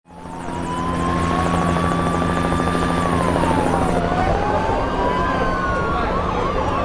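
Emergency-vehicle siren wailing slowly up and down, then switching to a fast yelp about six seconds in, over a steady low drone. The sound fades in at the start.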